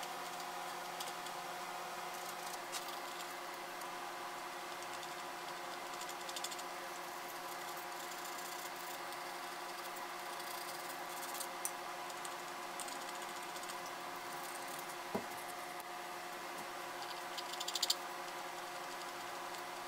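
Hand sanding on carved walnut: short, scratchy strokes of sandpaper every few seconds, with a louder cluster of strokes near the end and one light knock about three-quarters of the way through, over a steady background hum.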